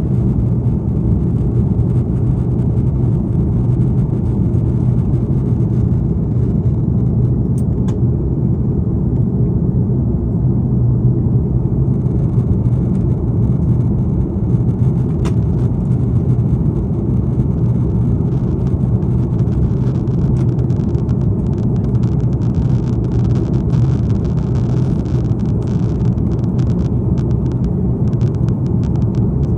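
Steady low rumble of an Airbus A330's jet engines and the airflow, heard inside the passenger cabin during the climb after takeoff.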